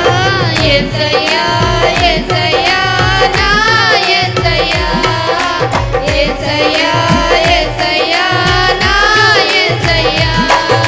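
Music of a Telugu Christian worship song: a steady hand-drum rhythm, its low strokes gliding in pitch, under a wavering melody line.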